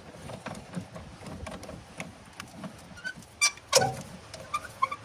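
Hand wrench tightening the air filter housing's mounting bolts: scattered faint metallic clicks and ticks, then two sharper, louder clicks near the end.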